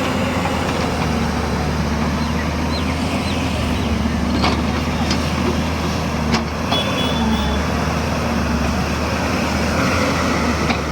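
JCB 205 excavator's diesel engine running steadily as it works, with two sharp knocks about four and a half and six seconds in.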